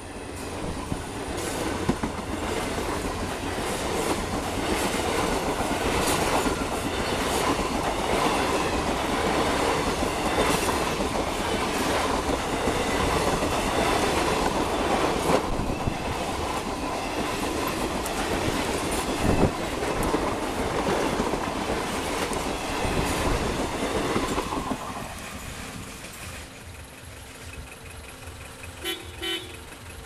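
Blue Indian Railways express coaches passing at speed close by: a steady rumble with wheels clattering over the rail joints. The sound drops away sharply about 25 seconds in.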